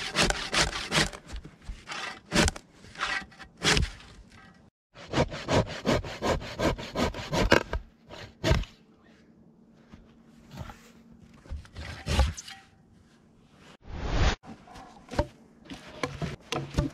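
Hand saw cutting through a log, in runs of quick back-and-forth strokes, about three a second, broken by pauses.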